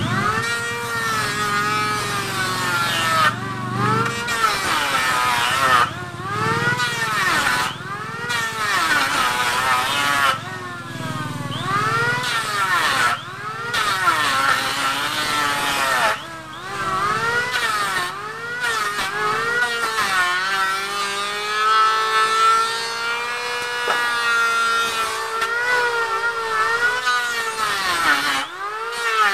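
Handheld electric planer running and cutting along an old reclaimed timber beam. Its motor whine repeatedly sags and recovers as each stroke bites into the wood, holding steadier for a few seconds past the middle.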